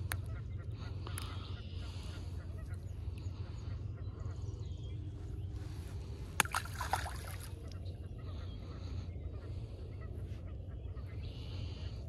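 Honking bird calls, like geese or ducks, over a steady low rumble. About six seconds in there is a sharp click, followed closely by a short, louder call.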